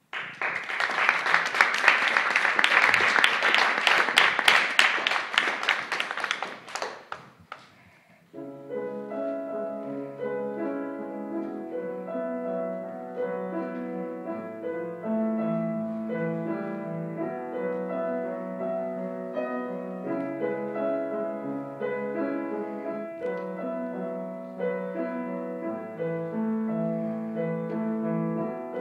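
Small audience applauding for about seven seconds, the clapping dying away; then a grand piano starts a new piece, a melody over sustained chords.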